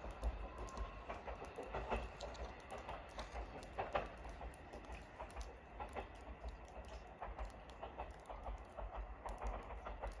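Departing 223 series 5500 electric train fading into the distance: a faint low rumble with scattered, irregular clicks and ticks.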